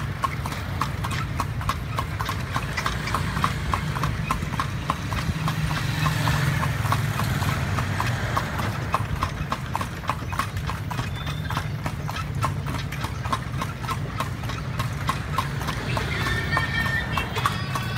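Horse-drawn kalesa on an asphalt road: the carriage horse's shod hooves beat a steady, even clip-clop, over a continuous low road rumble.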